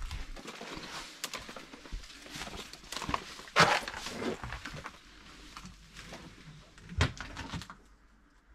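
Irregular rustling and crunching, with a louder crunch about three and a half seconds in and a sharp knock about seven seconds in.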